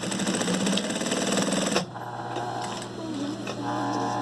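Brother DB2-B755-3 industrial lockstitch sewing machine running fast, then stopping abruptly a little under two seconds in, leaving a steady motor hum.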